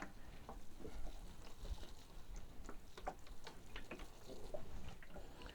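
Faint, irregular light ticks and taps from water dripping and pattering onto potting soil in flower pots as the soil is moistened for seeding.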